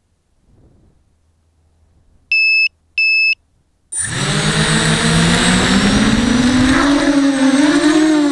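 ZMR250 quadcopter: two short beeps as it arms. About four seconds in, its brushless motors and 5-inch bullnose props start with a sudden loud buzz that climbs steadily in pitch as it lifts off.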